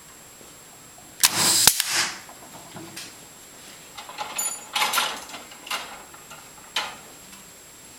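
Hangers being clipped onto an oyster cage float: a loud scraping rattle ending in a sharp click about a second in, then several shorter clatters and clicks of handling.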